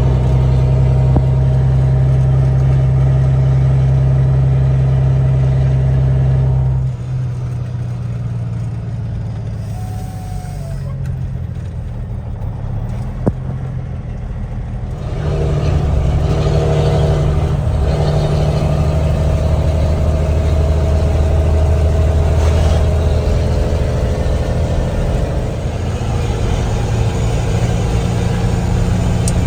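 Semi truck's diesel engine running under load. About seven seconds in it drops back to a quieter, lower running, with a single sharp click a few seconds later, then picks up strongly again about halfway through.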